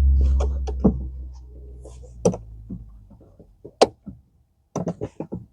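Handling sounds of a brake pedal cover being worked onto a car's brake pedal with a screwdriver: a low rumble that fades over the first few seconds, then scattered sharp clicks and knocks, several close together near the end.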